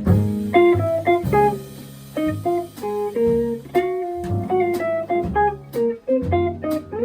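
Jazz quartet playing: electric guitar picking a melody line of single notes over bass, piano and drums, with cymbal hits throughout.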